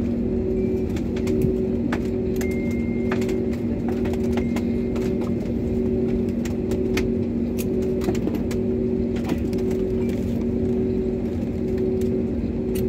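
Cabin noise of an Airbus A320-family jet airliner taxiing: a steady rumble from the engines at idle and the wheels on the taxiway, with a low steady hum whose upper note pulses about once a second, and scattered light clicks and rattles.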